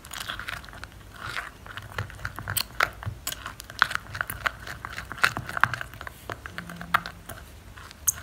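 Thick, creamy henna paste being stirred with a plastic spoon in a glass bowl: irregular wet squelching with quick clicks and scrapes.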